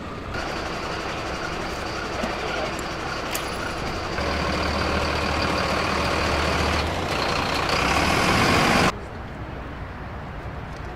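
Fire truck's diesel engine running close by, a steady heavy engine sound with a thin high whine over it, growing louder before it stops abruptly about nine seconds in. Quieter outdoor background follows.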